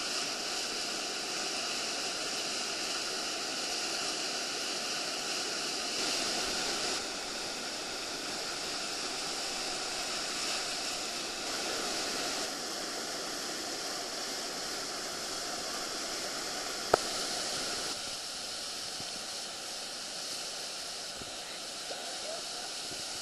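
White water churning and rushing through the stopper below a river weir. There is a single sharp click about seventeen seconds in.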